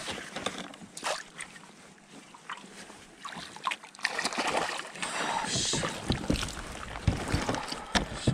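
A hooked fish thrashing and splashing at the surface beside a kayak, about halfway through, among scattered knocks and clicks of fishing gear against the hull.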